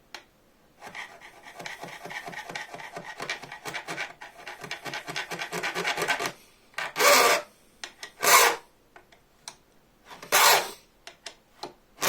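A hand file cutting teeth into a bow-saw blade: a run of quick, short strokes, about five a second. These are followed by three slower, longer and louder strokes about a second or two apart, with a fourth at the very end.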